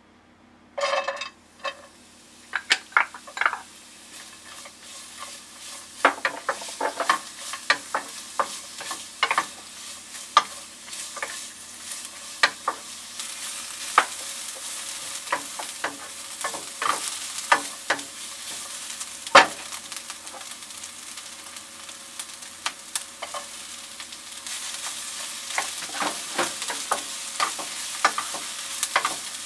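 Julienned carrots and green bell pepper strips sizzling in sesame oil in a nonstick frying pan, stirred with a wooden spatula that clicks and scrapes against the pan. The sizzle builds a couple of seconds in and grows louder near the end.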